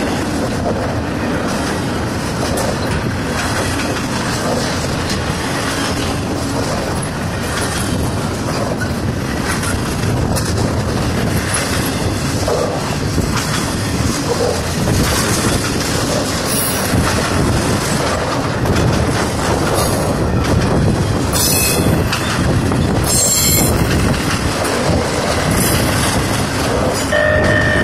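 CSX intermodal freight train passing close by: a steady rumble and clatter of double-stack container cars and trailer flatcars rolling over the rails. Short high-pitched wheel squeals come through a few times in the second half.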